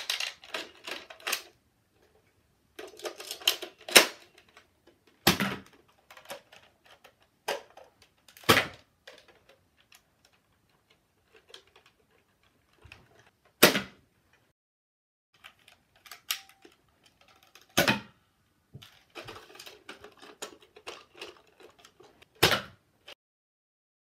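Nerf pump-action shotgun blasters being pumped and fired: light plastic clatter with about six sharp snaps, a few seconds apart.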